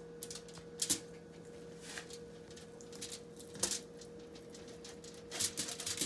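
A knife slicing a cooked beef tongue on a tray lined with aluminium foil and plastic: a few short crinkles and rustles of the foil and plastic, over a steady faint hum.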